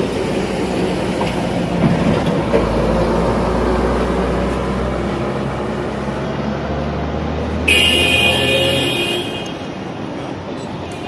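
Street traffic: a steady rumble of passing vehicles, with a high-pitched ringing tone sounding for about a second and a half near the end.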